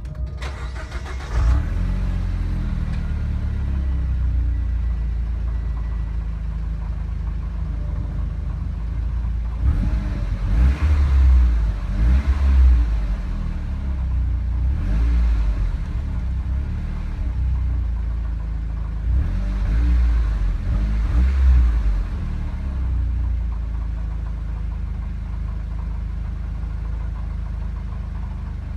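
2014 Mitsubishi Lancer Ralliart's turbocharged 2.0-litre four-cylinder on its stock exhaust, starting up about a second and a half in and settling to idle. It is revved several times in the middle before dropping back to idle.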